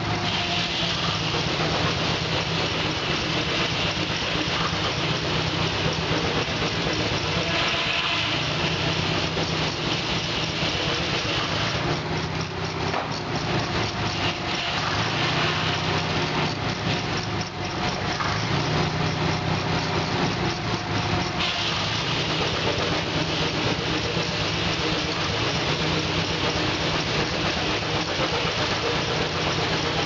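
Keck-Gonnerman steam traction engine running steadily while belted to a sawmill, with a continuous rushing hiss that grows stronger in stretches.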